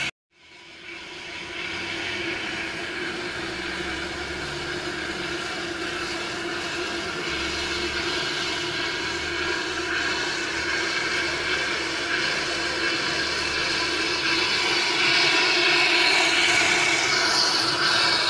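Steady hissing rush of liquid nitrogen flowing through a transfer hose into dewar tanks and boiling off as vapour, with a steady hum underneath. The hiss grows louder about fifteen seconds in.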